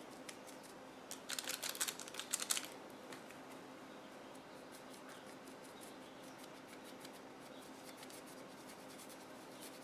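Paintbrush scratching in quick dry-brush strokes over a molded clay piece: a rapid run of scratchy ticks starting about a second in and lasting about a second and a half, then faint room tone with a low hum.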